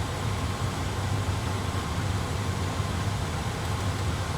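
Steady cockpit background noise of an A320 flight simulator: an even low hum with a hiss over it, unchanging throughout.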